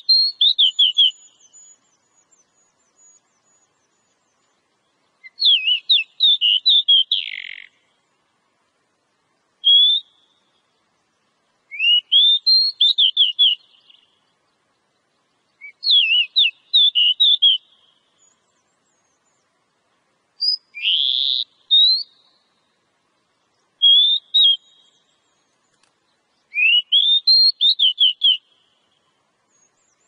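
Oriental magpie-robin (kacer) singing: about eight short phrases of quick whistled notes that sweep up and down, each lasting up to about two seconds, with pauses of a few seconds between them. One phrase partway through has a harsher, rasping note.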